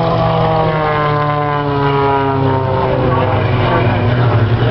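Single-engine propeller aerobatic plane flying past, its engine and propeller note sliding steadily down in pitch as it passes, over a steady low drone.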